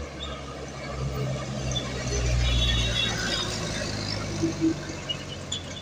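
Loaded box truck's diesel engine and tyres passing close by: a low rumble that swells to its loudest about two to three seconds in, then eases as the truck pulls away uphill.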